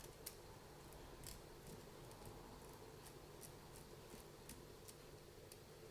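Near silence with faint, irregular light clicks and ticks, about a dozen, of small parts being handled while a differential from an RC car is worked on by hand.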